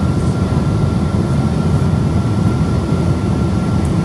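Steady cabin roar of a Boeing 777-200 airliner on descent, its engines and the rushing airflow heard from a window seat beside the engine, with a faint steady high whine over it.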